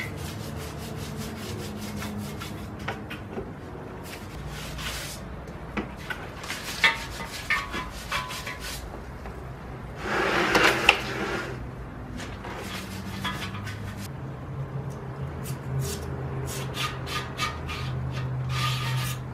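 Stiff nylon brushes scrubbing a wet cast-iron Ford 390 FE engine block, in quick scratchy strokes, while it is washed with soap and water. About ten seconds in there is a louder rushing burst lasting over a second. Near the end a long bore brush is worked back and forth through the block's passages.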